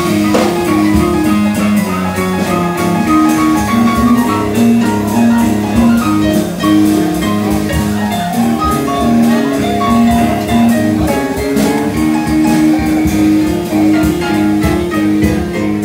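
Music with a steady beat and a repeating bass line, played loud.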